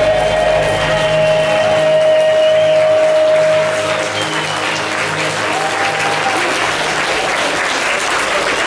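A rock band's final held electric guitar note and low bass notes ringing out over audience applause. The music stops about four seconds in, leaving the crowd applauding.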